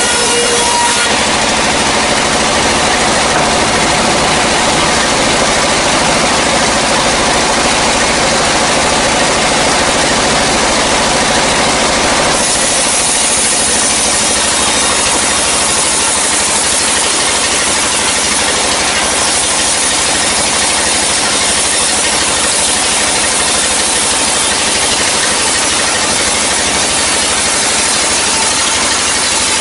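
Sawmill band saw running and cutting lengthwise through a dry hardwood log, a steady loud mix of blade rasp and machine drive. About twelve seconds in the sawing turns hissier and brighter.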